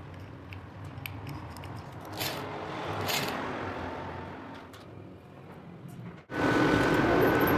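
Workshop handling and scraping sounds, then a power tool starts abruptly about six seconds in and runs loudly with a steady motor whine.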